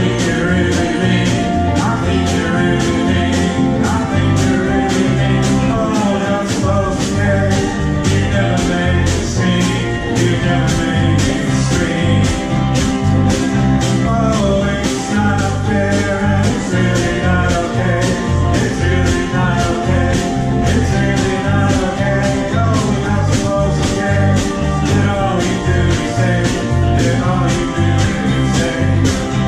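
Live ukulele band music: strummed ukuleles and bass guitar in a steady, bouncy rhythm, with singing over it.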